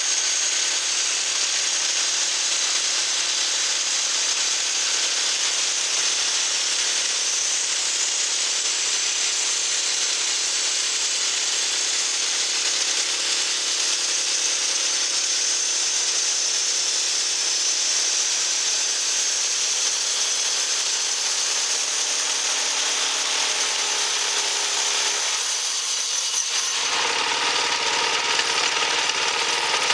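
Engine-driven pusher band sawmill cutting through a log: a steady, high sawing hiss with the engine under load. About 26 seconds in, the cut ends and the engine settles to idle.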